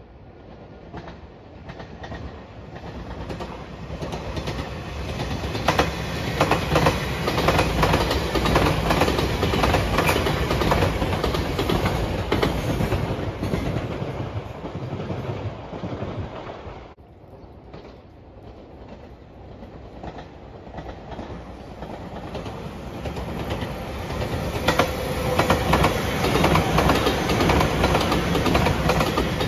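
A JR Shikoku 8600 series Shiokaze limited-express electric train approaching and running past, its rumble growing louder with wheels clicking over the rail joints. About 17 seconds in the sound cuts off abruptly, and an 8000 series Shiokaze electric train then builds up and passes close by with the same clicking.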